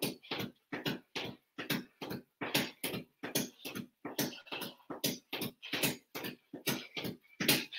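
A man breathing hard during exercise: quick, sharp breaths at an even pace, about three a second.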